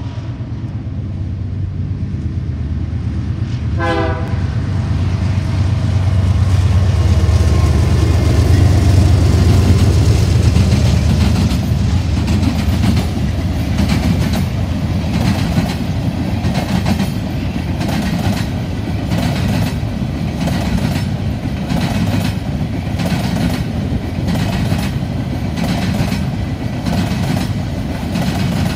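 Freight train of GE C44-9W diesel locomotives, each with a 16-cylinder GE FDL engine, rumbling past, loudest about eight to ten seconds in, with a short horn blast about four seconds in. After that, loaded covered hoppers and tank cars roll by with a steady clickety-clack of wheels over rail joints.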